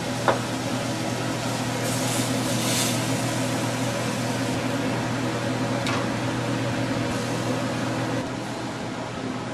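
A fan or small motor humming steadily under a hiss, with a light click just after the start and another about six seconds in.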